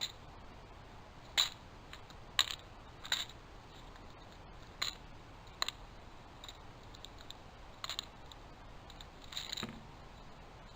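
Sharp, light clicks and taps at uneven intervals, about eight clear ones with a couple of quick doubles, over a faint steady hiss.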